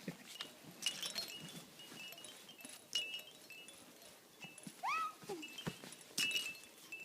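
A pet playing with a toy bird: scattered clicks and taps with faint bell-like ringing, and one short rising squeal about five seconds in.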